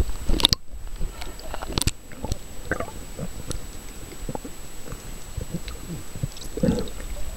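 Underwater sound picked up by a camera submerged in the sea: muffled scattered clicks and crackles over a low rumble. There is a sharp splash-like burst about half a second in as it goes under.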